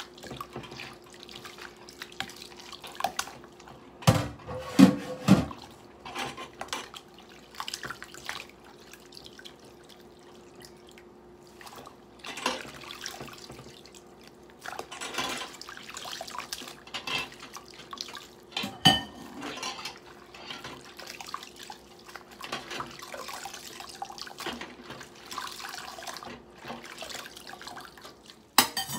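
Dishes being washed by hand in a stainless steel sink: water splashing and dripping as a dishcloth wipes a plate, with a few sharp knocks of dishware against the sink, the loudest about four to five seconds in and at the very end.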